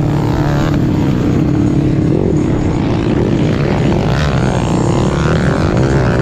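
Underbone motorcycle engine running hard under racing load, the revs rising and falling again and again as the rider works the throttle over the rough track, heard from on board the bike.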